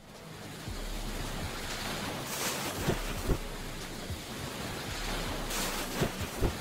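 Channel logo intro sound effect: a rushing noise like static or wind, swelling about two seconds in and again near the end, with a few scattered clicks.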